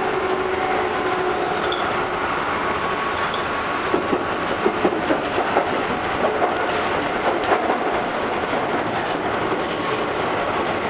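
Shizuoka Railway 1000 series electric car KuMoHa 1008 running on the line, heard from inside its front cab. A run of wheel clicks over rail joints comes about four to seven and a half seconds in.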